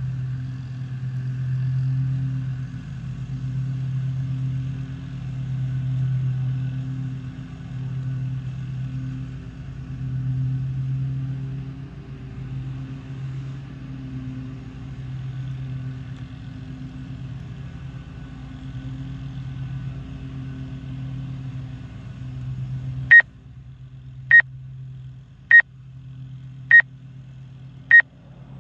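Quadcopter drone's propellers humming steadily, the level swelling and fading every second or two. About 23 s in the hum quietens and a short high electronic beep sounds about every 1.2 s, six times.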